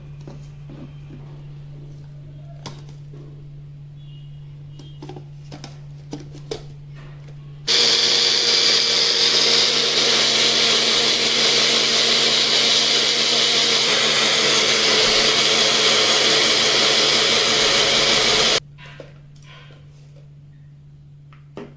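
Countertop blender running for about eleven seconds, blending semi-frozen milk with sugar and coffee powder. It starts suddenly about eight seconds in and cuts off abruptly. Light clicks and knocks of the jar being handled come before and after it.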